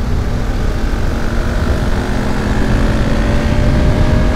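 BMW F850GS Adventure's parallel-twin engine accelerating in fifth gear, its note rising slowly as speed builds, under heavy wind rush on the microphone.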